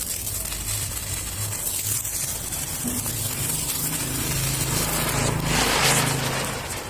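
Ground chakra, a ground-spinner firework, burning and spinning: a continuous fizzing hiss that swells loudest about five and a half seconds in.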